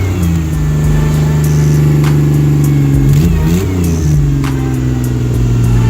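Cummins diesel engine running just after a reluctant cold start, at a steady fast idle with one brief rev up and back down about three seconds in.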